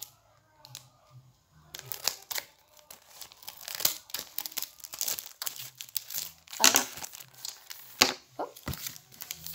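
Clear plastic sticker packet crinkling and tearing as it is cut open with small scissors and the sheet is pulled out: irregular rustles and crackles that start after a short quiet, with the loudest crackles in the second half.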